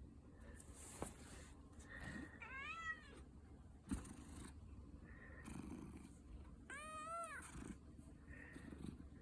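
Domestic cat giving two yawning meows, each rising then falling in pitch, one about a quarter of the way in and one about three quarters through. There are two brief sharp clicks, one before each meow.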